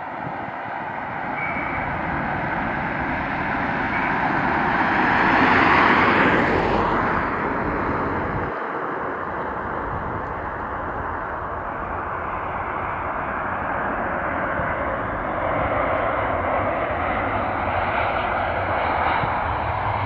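Jet airliner's engines passing close, the noise swelling to a peak about six seconds in with a high whine that drops in pitch, then settling into a steady jet rumble.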